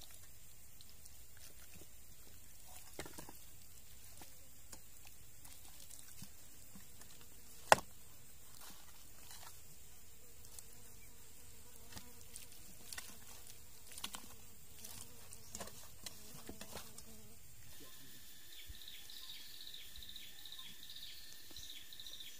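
Insects buzzing in the background, with small scattered handling noises as hands rub seasoning into raw pork ribs. One sharp click about eight seconds in is the loudest sound. In the last few seconds a steady high insect drone with quick repeated chirps takes over.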